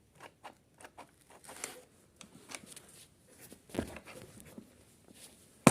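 A string of light clicks and knocks from objects being handled, ending in one sharp, louder knock.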